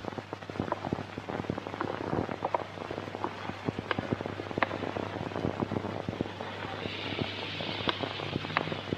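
Irregular crackling and sharp clicks over a steady low hum, typical of an old 1960s film soundtrack. A soft hiss swells near the end.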